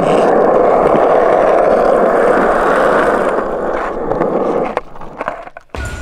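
Skateboard wheels rolling across a smooth concrete skatepark surface, a steady rolling rumble that fades away about five seconds in.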